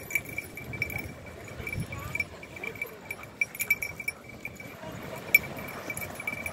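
Metal on a dog's collar jingling repeatedly as a Rhodesian Ridgeback and an Afghan hound play-fight, one steady high ring pulsing with their movements, over the scuffle of paws in sand and a few low play-growls.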